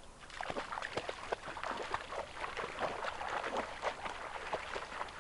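Shallow stream water splashing and sloshing in quick, irregular splashes, as fish and hands churn the water.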